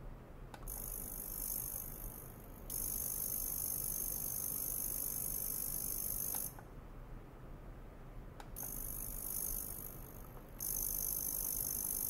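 Ultrasonic probe in a glass jar of water, driven by a function generator, giving off a high-pitched hiss with a few thin steady tones. It switches on about a second in, cuts off at about six and a half seconds and comes back two seconds later, with faint clicks at the switch points.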